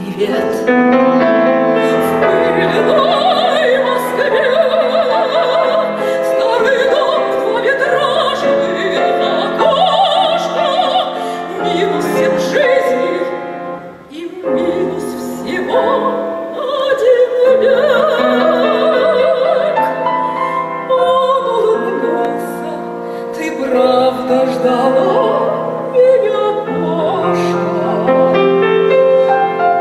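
A woman singing in a trained classical voice with wide vibrato, accompanied by a grand piano; the music dips briefly about halfway through, then goes on.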